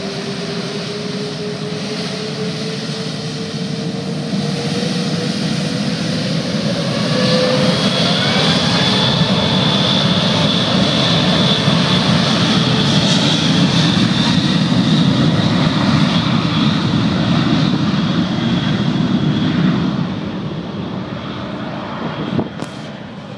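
Airbus A380's four Rolls-Royce Trent 900 turbofans spooling up on the takeoff run: the whine rises in pitch, then settles into loud, steady jet noise with a high fan whine. The noise eases off a few seconds before the end, where there are a couple of short clicks.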